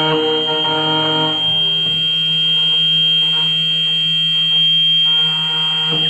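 Key cutting machine's spindle motor whining steadily as its cutter mills a HON66 key blank, a high whine over a low hum. A fuller set of tones drops away about a second and a half in, leaving the whine and hum.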